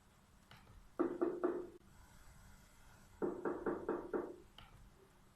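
Knocking on a door: three quick knocks about a second in, then a second round of five knocks about two seconds later.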